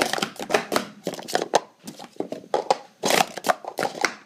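Plastic sport-stacking cups being stacked and unstacked at speed on a mat: quick runs of clattering plastic clacks, with a brief lull near the middle.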